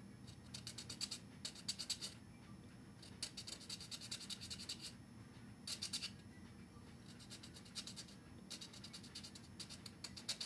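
A micro file rasping on the plastic hull of a model kit in about six short bursts of quick back-and-forth strokes, shaping a drilled-out window opening.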